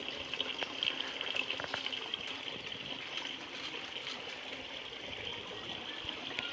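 Water running steadily with a continuous hiss, with a few faint ticks.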